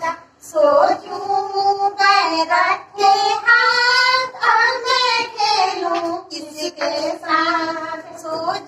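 A child's voice singing a song, with long held notes in the middle.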